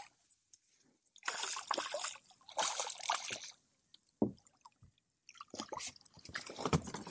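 Water splashing and sloshing in irregular bursts as a hooked redfish is drawn alongside a kayak, with a single sharp knock about four seconds in.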